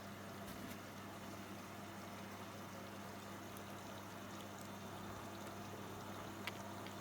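AEG LS60840L washing machine taking in water at the start of its cycle: a steady rush of water pouring in, with a steady low hum under it. A small tick near the end.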